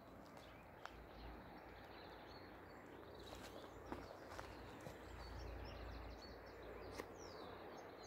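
Near silence: faint outdoor ambience with a few faint, distant bird chirps and several soft clicks.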